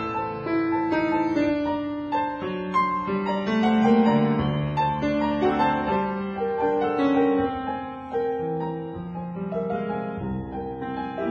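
Background piano music with many overlapping held notes.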